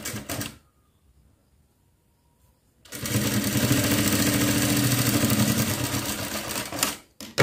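Industrial lockstitch sewing machine starting about three seconds in and running steadily at speed for about four seconds while a narrow fabric strip is stitched, then stopping abruptly. A short sharp snip follows near the end as scissors cut the thread.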